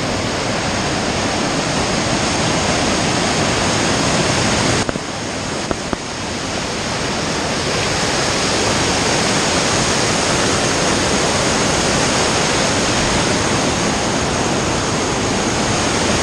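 Whitewater rapids of a mountain creek rushing loudly and steadily over boulders beneath a log footbridge. The sound dips briefly about five seconds in, with a couple of small knocks.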